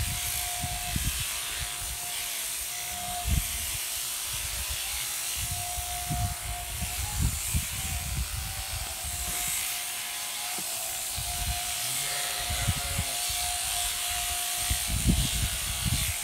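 Electric sheep shears from overhead hanging shearing machines running steadily as two sheep are shorn, a constant hum with a buzzing hiss. Irregular low thumps come and go, loudest about three, seven and fifteen seconds in.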